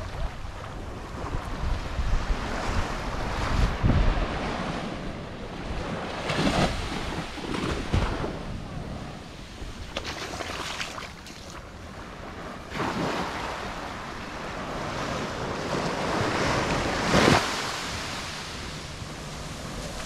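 Small waves washing up on a sandy beach in surges, with gusts of wind buffeting the microphone.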